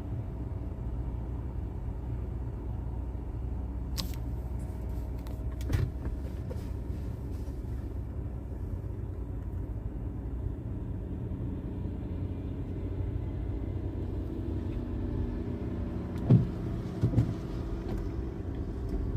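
Steady low vehicle engine rumble, heard from inside a stopped car, with a few sharp clicks about four and six seconds in and two knocks near the end.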